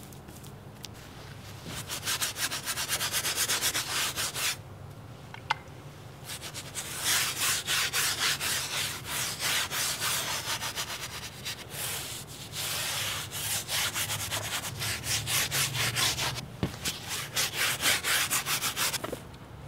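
A large bristle brush scrubbing oil paint across a big stretched canvas in quick back-and-forth strokes, several a second. The strokes come in runs of a few seconds with short pauses between them.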